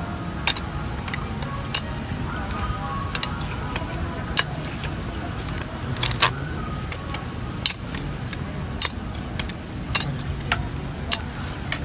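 Busy street-market background: a steady low rumble with murmuring voices, and scattered sharp clicks and knocks about once a second.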